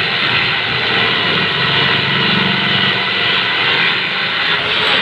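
Pullman corded electric jigsaw running steadily as its blade cuts through a wooden board.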